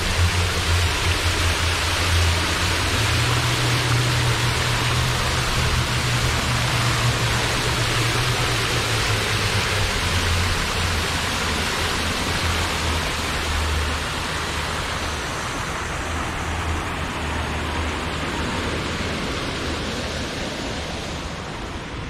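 Water falling in sheets from the rims of a two-tier fountain into its basin: a steady splashing rush, with a low rumble underneath. It grows fainter toward the end.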